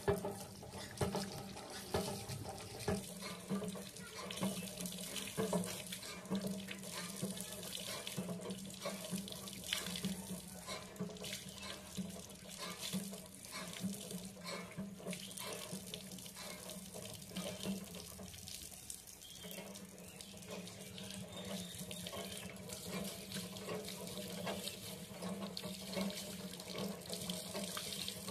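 Water running and splashing, as in washing under a flow of water, with many small irregular splashes over a steady rush.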